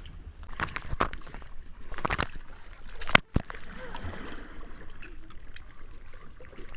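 Water splashing and sloshing in a backyard swimming pool, picked up through a waterproof camera housing. There are a few sharp splashes in the first three seconds, then a brief drop-out, then steadier splashing.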